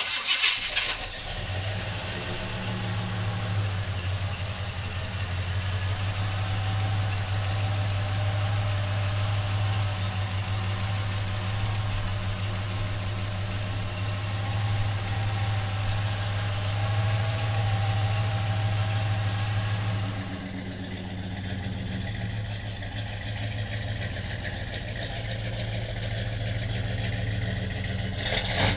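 1970 Chevrolet Monte Carlo's big-block V8 starting up and catching at once, then settling into a steady idle. About 20 seconds in, the sound turns duller.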